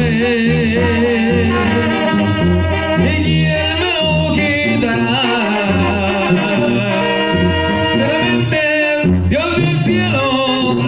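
Live Mexican banda playing loudly: a tuba bass line under trumpets, trombones and clarinet, with drums.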